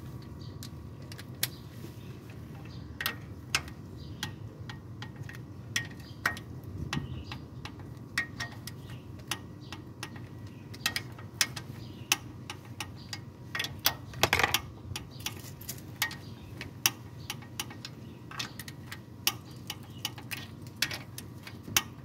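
Ratchet of a torque wrench clicking in short irregular runs as the bolts of a new balancer shaft on a Toyota 2AZ-FE engine are tightened, with one louder knock about fourteen seconds in.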